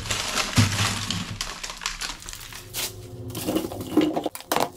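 Dense rustling of plastic bags and clattering of frozen packages being handled and pulled out of a freezer, then scattered knocks and clicks.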